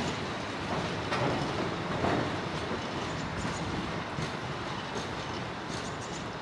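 Covered freight wagons rolling past on the rails: a steady rumble of wheels and running gear, with occasional clicks of wheelsets passing over rail joints, the clearest about one and two seconds in.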